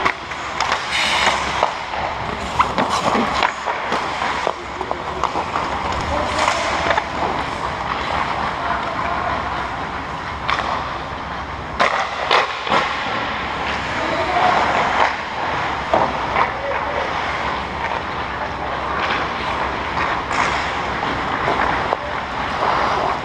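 Ice hockey play: skate blades scraping and carving the ice, with sharp clacks of sticks and pucks now and then.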